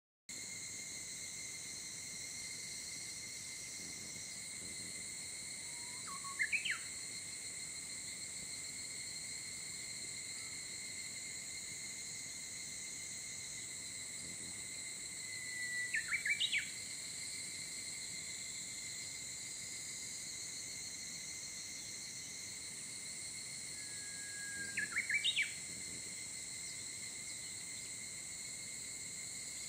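Insects calling steadily at a high pitch, with a songbird singing the same short phrase three times about nine seconds apart: a held whistled note, then a few quick notes rising higher.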